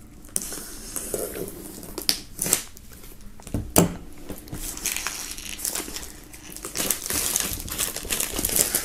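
Plastic shrink wrap being slit with a knife tip and pulled off a cardboard box, crinkling and tearing with scattered clicks, one sharp click about four seconds in, and denser crinkling near the end.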